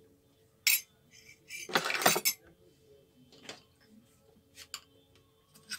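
Spoons clinking and clattering against bowls and dishes during hand mixing: a sharp clink about a second in, a longer clatter around two seconds, then a few lighter clinks.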